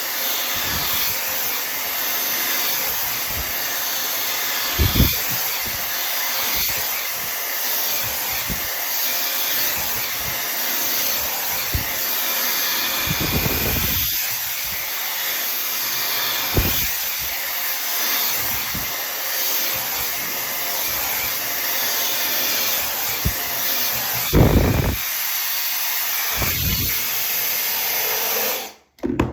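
Tymo Air Hype hair dryer running steadily with a loud airy rush, with a few brief low thumps, until it is switched off suddenly near the end.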